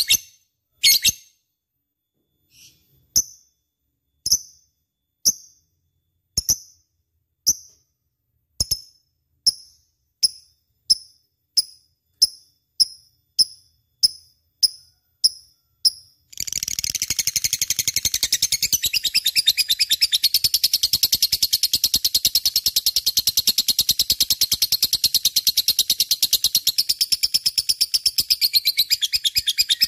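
Lovebird giving sharp, high-pitched chirps, at first single calls about a second apart that come steadily faster, then about halfway through breaking into a continuous rapid chatter. This is the bird in full, energetic song.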